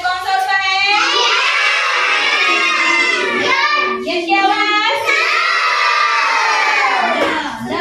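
A group of young children singing together in unison, loud and continuous, with a brief break about four seconds in.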